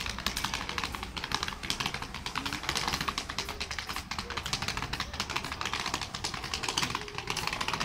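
Small plastic wheels of a rolling school backpack clattering over interlocking paving blocks: a fast, uneven stream of clicks as the wheels cross the joints.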